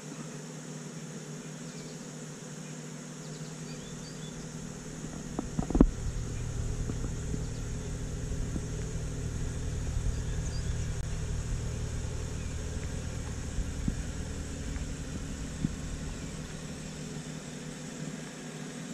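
BMW M235i's turbocharged 3.0-litre straight-six starting up about six seconds in, with a sharp burst as it fires, then idling with a steady low rumble that eases off a little near the end.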